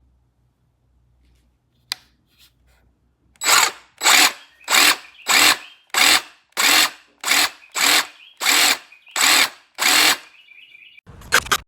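DeWalt 20V MAX cordless jig saw (DCS331B) motor run in short, repeated trigger pulls: about eleven quick bursts at an even pace, roughly 0.6 s apart, then one more short burst near the end. A single sharp click comes about two seconds in.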